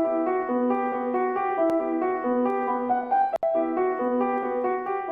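Dark ambient sample playing back: piano and bell layers holding notes in a slow, repeating melody. The playback drops out for an instant about three and a half seconds in, then carries on.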